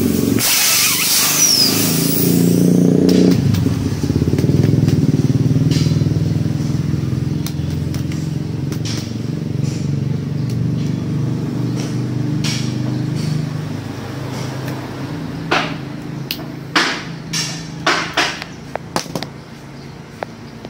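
A motorcycle engine runs nearby with a steady low drone that slowly fades. A loud hiss sounds over it for the first three seconds. In the last few seconds come several sharp clicks and knocks of small hand tools.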